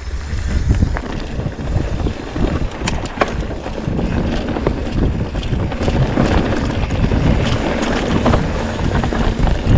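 Wind buffeting the microphone with a steady low rumble as a mountain bike rolls down a dirt trail, with scattered short clicks and rattles from the bike.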